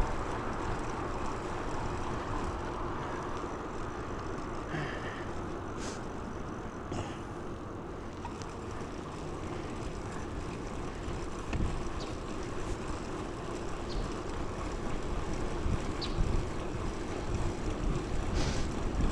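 Wind buffeting the microphone and steady tyre and road rumble while riding a bicycle, with a few faint ticks.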